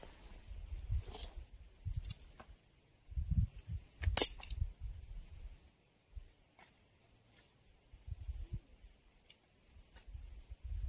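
Tent pole sections clicking together as a shock-corded tent pole is assembled. The sharpest click comes about four seconds in and a smaller one about a second in, over an uneven low rumble of wind on the microphone.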